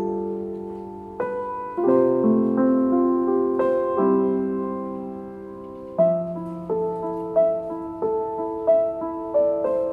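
Slow solo piano music: chords and single notes struck a second or so apart, each ringing and fading away.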